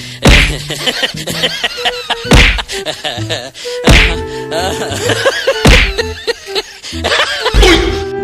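Edited music track with a loud slap-like hit five times, about every one and a half to two seconds.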